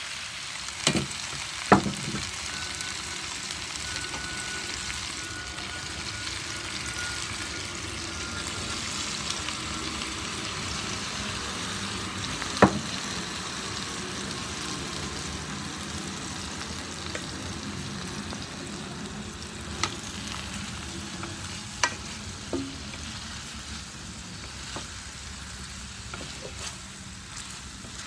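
Chicken drumsticks sizzling steadily in hot oil in an electric skillet, a continuous frying hiss. A few sharp knocks come through as wooden chopsticks and a spatula turn the pieces against the pan, two close together near the start and one a little before halfway.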